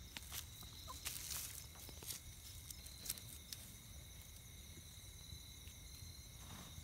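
Buff Orpington chickens scratching and pecking in loose garden soil: faint scattered scratches and clicks, with an occasional soft cluck.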